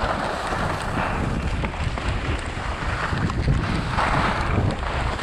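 Wind buffeting an action camera's microphone during a fast ski run, mixed with the hiss and scrape of skis on groomed, packed snow. The hiss swells as the skis carve through turns, most strongly about four seconds in.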